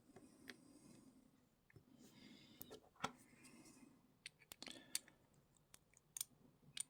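Faint, scattered clicks and light metal taps from an Abus EC880 dimple lock cylinder and its small parts being handled during disassembly.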